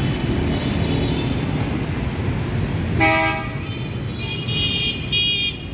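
Steady rumble of street traffic with vehicle horns. One loud, short, low honk comes about three seconds in, then two shorter, higher beeps near the end.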